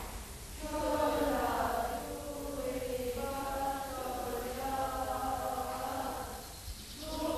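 A singer vocalising long held notes as a rehearsal warm-up exercise: a note bending downward, then a longer steady held note, with another note starting near the end.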